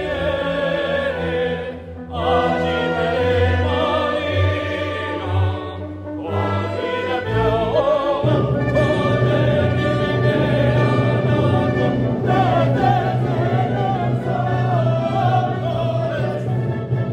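Choir and solo voices with vibrato singing a festive antiphon, with orchestral accompaniment. The music dips briefly about two seconds in and again near six seconds, and from about eight seconds a deep bass note is held under the voices.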